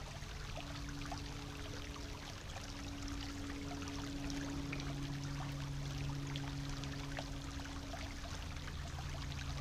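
Small brook trickling and bubbling over stones, with many small plinks. A steady low hum runs underneath from about half a second in.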